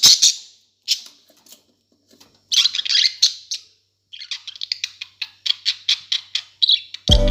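Budgerigars chattering in rapid trains of short, high-pitched chirps and squawks, in several bouts separated by brief pauses.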